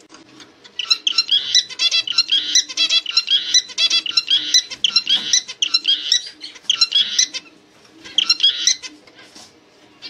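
Male zebra finch singing: a fast string of high chirping notes that starts about a second in and runs for some six seconds, with a short burst again near the end.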